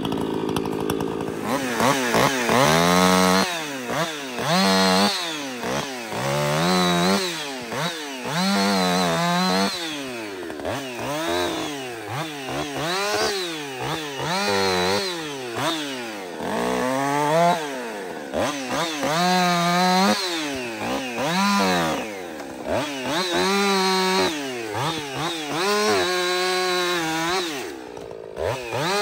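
Woods-ported Jonsered 2156 two-stroke chainsaw, idling briefly, then opened up and let fall back over and over, its engine note rising to a high whine and dropping every second or two.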